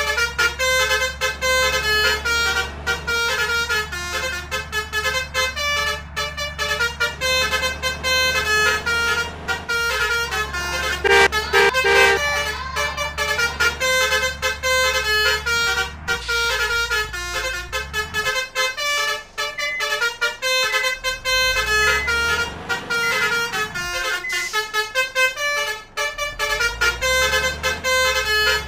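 Bus's Basuri multi-tone musical air horn ('telolet') playing a quick tune, note after note, loudest about eleven seconds in, over a low engine hum.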